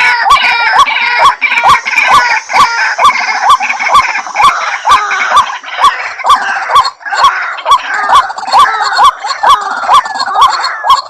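White-breasted waterhen (ruak-ruak) calls, a short harsh note repeated about three times a second, played as a loud lure recording. A busier overlapping chatter of calls fills the first half and thins out about six seconds in.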